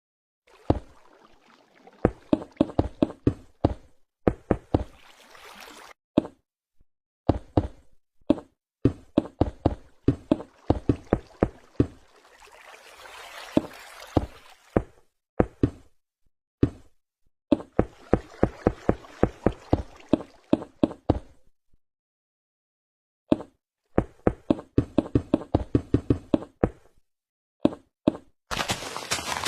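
Rapid, irregular knocks and taps in clusters of several a second, with pauses between. A short burst of hiss comes near the end.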